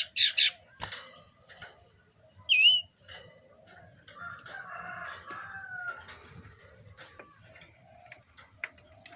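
Cipoh (common iora), a bird in breeding condition, calling: a quick pair of loud chirps at the start and a single clear whistled note that dips and rises about two and a half seconds in. A rooster crows more quietly in the middle, and there are scattered light clicks.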